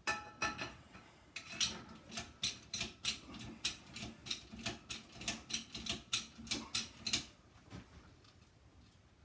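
Hand-pumped bottle jack on a shop press being worked by its handle: a quick, even run of metallic clicks, about three a second, that stops about seven seconds in. The press is forming a 24-gauge stainless sheet in a die.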